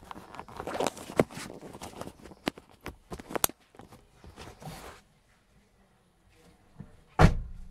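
Handling noise of a small camera being fitted into place: scattered clicks, taps and rustles, then a single loud thump near the end.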